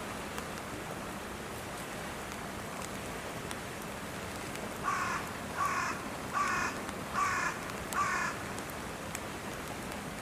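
A crow cawing five times in an even series, about one caw a second, over a steady background hiss.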